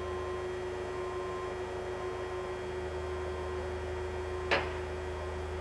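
Alzmetall AB4SV gear-driven drill press running with its power down feed engaged: a steady low hum with a steady mid-pitched tone over it, and one short click about four and a half seconds in.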